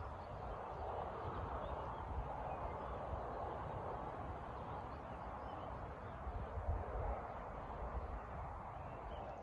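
Riverbank ambience: a steady rushing noise with a low rumble beneath it and a few faint bird calls.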